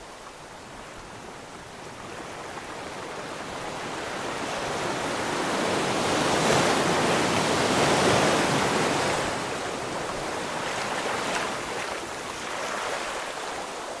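Ocean waves: one wave swells up over several seconds, peaks and washes back out, followed by a smaller surge near the end.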